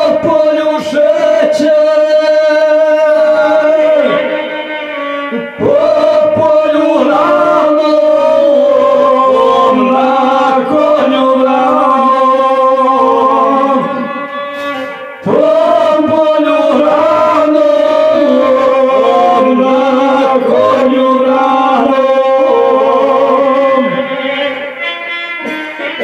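A man singing into a microphone, accompanied by a violin. The singing breaks off briefly twice between phrases, and near the end the voice stops and the violin plays on alone.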